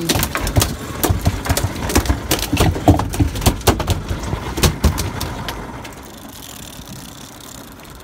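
A freshly landed yellowfin tuna thrashing on a boat's fibreglass deck: rapid, irregular knocks of its tail and body against the deck, over a low rumble. The knocks die away about six seconds in, leaving a steadier, quieter noise.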